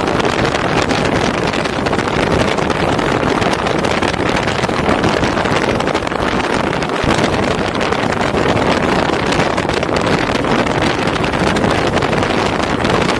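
Steady rush of wind on the microphone and road noise from a moving car, holding at an even level.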